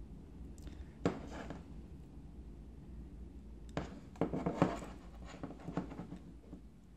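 Handling noise of two smartphones, a Sony Xperia XZ and Xperia Z5, being shifted in the hands and brought together edge to edge: a few soft clicks and taps, one about a second in and a cluster around four to five seconds in, over a low room hum.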